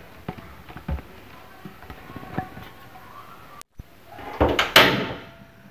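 Kitchen handling noises: scattered light knocks and clicks, then a louder rough rushing scrape about four and a half seconds in.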